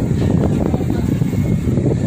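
Steady low rumbling background noise that stays much the same throughout.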